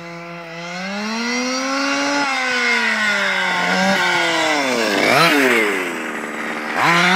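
Losi 5IVE-T 1:5 scale RC truck's two-stroke petrol engine revving as the truck drives off. Its pitch climbs over the first two seconds and eases back, dips sharply about five seconds in, then climbs quickly again near the end.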